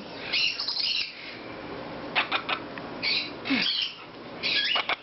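Baby Amazon parrots squawking and chirping: a handful of short, high calls spread through, with a few quick clicks about two seconds in.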